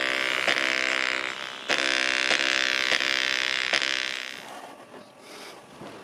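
A tiny 2-watt speaker overdriven by a 50-watt stereo amplifier, playing music as a harsh, distorted buzz with a steady beat while it smokes from the overload. The sound fades away about four seconds in, leaving faint noise.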